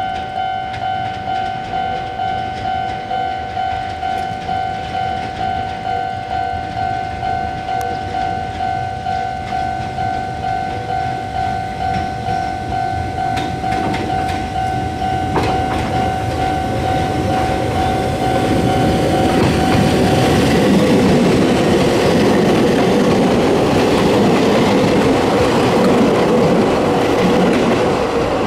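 A level crossing warning bell rings steadily, a repeating ringing chime, as a Kobe Electric Railway 3000 series electric train approaches. From about two-thirds of the way in, the train runs past close by, and its wheel and running noise drowns out the bell.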